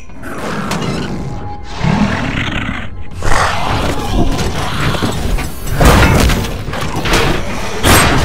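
Action film soundtrack: music mixed with heavy impact sound effects, with loud hits about three, six and eight seconds in.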